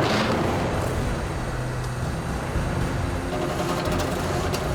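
Heavy truck diesel engines running steadily under load as a wrecker pulls on a semi frozen into a snowbank, with a rushing swell at the start.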